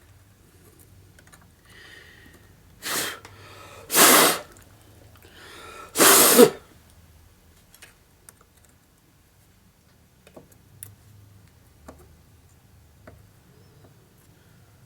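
A man coughing and clearing his throat: three loud, harsh coughs within about four seconds, the first coming about three seconds in. Faint light clicks follow.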